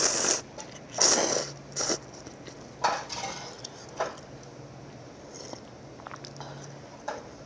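Noodles from a cup of instant dandan noodles (tantanmyeon) being slurped, several loud slurps in the first two seconds. Then come shorter sips and slurps of broth from the tipped cup around three and four seconds in.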